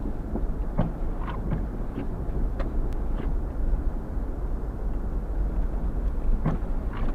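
Car driving through deep, packed snow: a steady low rumble of engine and tyres, with scattered short knocks and thuds.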